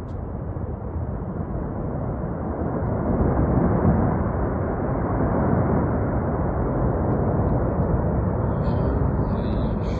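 Snow-and-ice avalanche pouring down a mountainside: a steady low rumble that swells about three seconds in and then holds.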